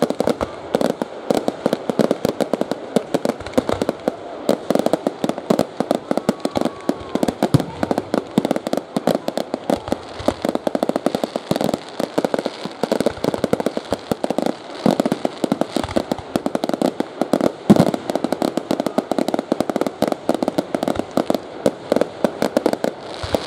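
Aerial fireworks bursting in a dense, continuous barrage: many bangs and crackles each second, with one especially loud bang about three-quarters of the way through.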